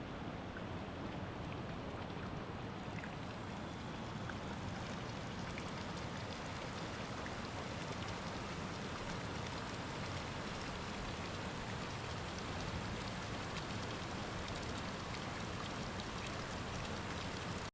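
Steady outdoor water noise, rain falling with faint scattered drop ticks over a constant rushing hiss, cutting off suddenly at the very end.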